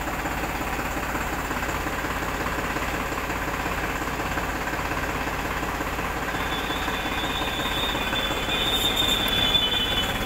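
Powertrac Euro 50 tractor's three-cylinder diesel engine running steadily while the hydraulic three-point lift raises the lower link arms. A steady high whine joins about six seconds in.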